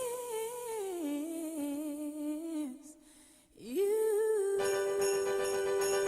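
Song music: a woman's voice holding long, wavering sung notes, with a brief break in the middle. A full band with sleigh bells comes in about three quarters of the way through.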